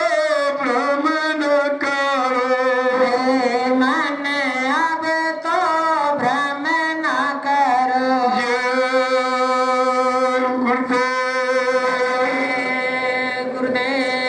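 A man singing a devotional bhajan in a wavering, ornamented melody over a steady held drone note, the melody settling into longer held notes in the second half.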